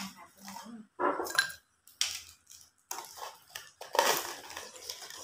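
A person slurping hot pot noodles and broth from a bowl, a run of noisy slurps about a second apart, the loudest about four seconds in.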